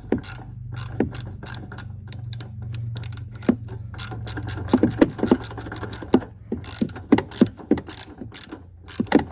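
Hand ratchet clicking in short irregular strokes as a fender mounting bolt by the door is loosened, over a steady low hum.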